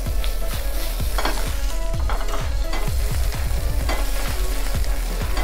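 Chopped bell peppers and garlic sizzling in a hot wok over a gas flame as they are stir-fried, with quick repeated knocks of the stirring throughout.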